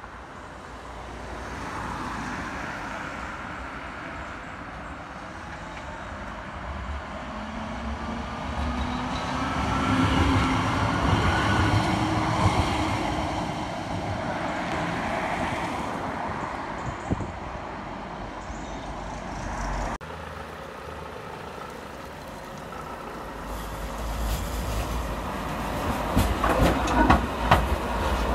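Sheffield Supertram Siemens-Duewag tram approaching and passing on street track: a rising and falling motor whine and wheel rumble that peak mid-way. After a sudden change, a second tram runs close by, with a rapid clatter of wheels over rail joints near the end.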